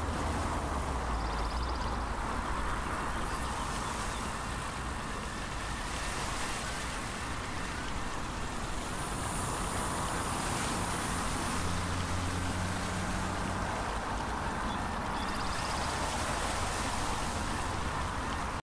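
Steady outdoor background noise: an even hiss over a low rumble, with a faint low hum coming in about ten seconds in.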